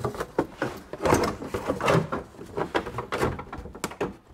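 Plastic under-engine splash shield of a Toyota Prius being pulled down and bent aside by hand: a run of irregular plastic scrapes, knocks and rattles.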